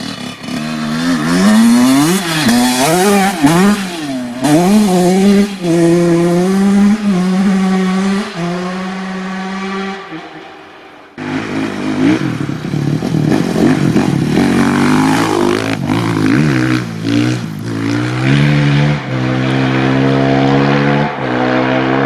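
Honda CR85 two-stroke dirt bike engine revving hard, its pitch rising and falling quickly, then holding steady. The sound drops away suddenly about ten seconds in and starts again with another run, the revs climbing in steps near the end as it shifts up.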